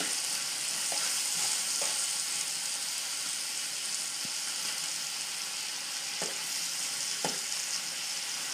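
Beef liver strips and sliced onion sizzling steadily in hot oil in a frying pan, with a few short knocks and scrapes of a metal spoon against the pan as the mix is stirred.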